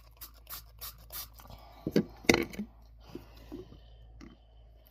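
Slime being squished and kneaded by hand, giving quick little clicking pops, about four a second at first. Two louder knocks come about two seconds in.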